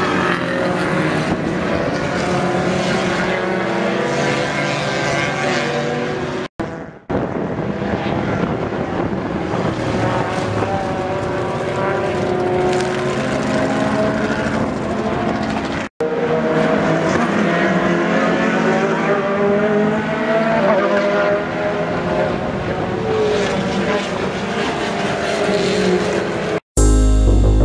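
Race car engines, open sports prototypes, passing at racing speed, the pitch rising and falling as they accelerate, lift and change gear. The sound cuts out briefly a few times between clips, and piano-like music starts near the end.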